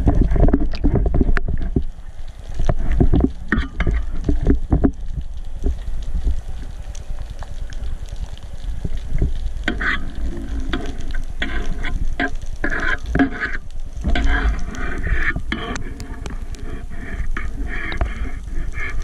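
Water sloshing and bubbling against an underwater camera while a diver handles a speared Atlantic bonito: heavy low rumbling with sharp knocks for the first few seconds, then a crackling, sizzle-like patter from about ten seconds in.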